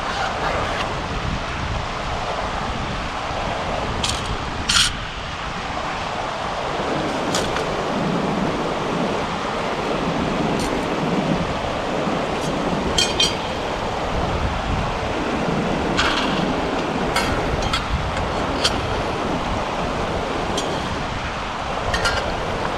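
A river running steadily, with scattered sharp clicks and knocks over it while firewood is gathered on the riverbed.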